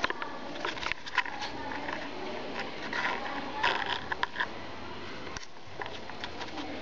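Handling noise from a handheld camera being moved about: a string of irregular clicks, knocks and scrapes over faint room noise.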